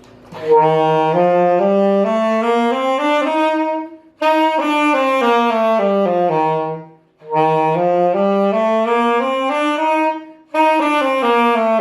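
Saxophone playing a Lydian-mode scale (do, re, mi, fi, sol, la, ti, do: a major scale with raised fourth), one note at a time up and back down, then up and down again, with short breaths between the runs.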